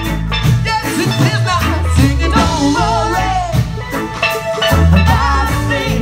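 Live band playing a reggae song: sung vocals over electric guitar, steel pan and drum kit.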